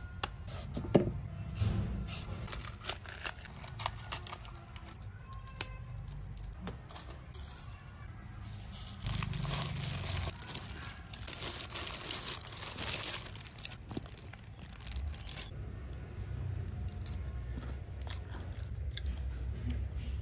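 Irregular crunching and tearing of crisp food, with a steady low rumble underneath and a denser patch of crackling hiss about nine to thirteen seconds in.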